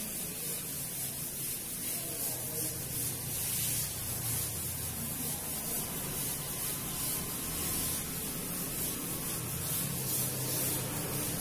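Felt blackboard duster rubbing chalk off a blackboard in repeated back-and-forth strokes: a steady dry scrubbing.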